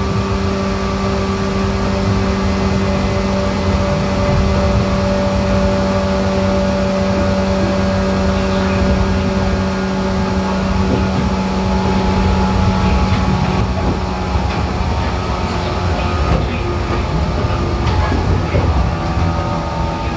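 Running sound inside a JR 415 series 500-subseries electric train's motor car (MoHa 415-507) between stations: wheels rumbling on the rails under a steady electric hum from the motors and gears. About two-thirds of the way through, the lowest hum weakens and the tones slowly fall in pitch.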